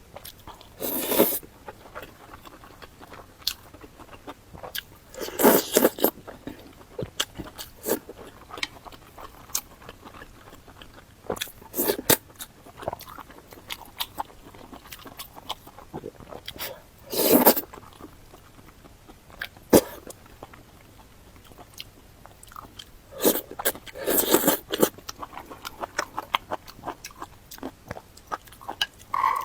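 A person eating close to the microphone: about five loud bites or crunches, one every five to six seconds, with smaller chewing clicks in between.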